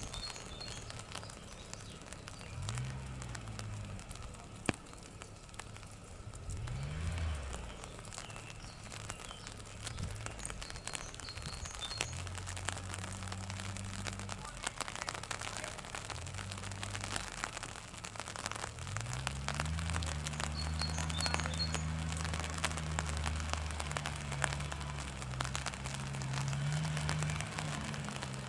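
Raindrops pattering on an umbrella, a dense crackle close to the microphone. Under it, a low motor-like drone from the neighbours' noise swells in pitch several times and holds steady, loudest in the last third.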